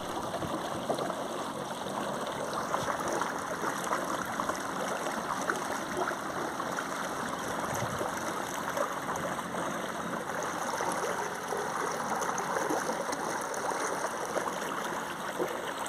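Steady rush and splash of water churned up by an electric trolling motor's propeller and streaming past the stern of an inflatable boat moving at speed. There is no engine note, only an even wash of water.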